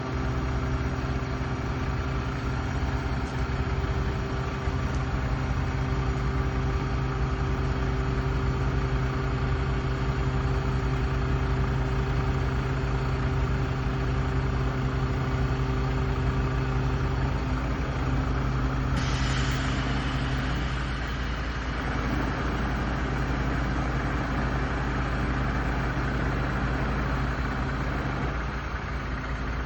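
Steiger tractor's diesel engine idling steadily, with a hiss joining about two-thirds of the way through.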